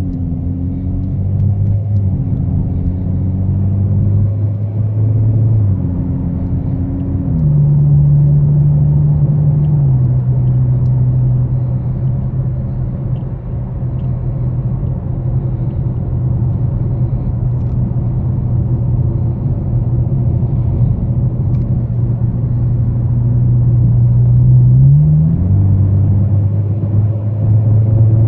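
Exhaust drone from a 2016 Dodge Challenger SXT's 3.6L V6 with Pypes M80 mid mufflers and the rear resonators deleted, heard from inside the cabin while the car drives and gently accelerates. The low drone holds steady, stepping in pitch at the gear changes, with a short rise and sudden drop near the end as the transmission upshifts.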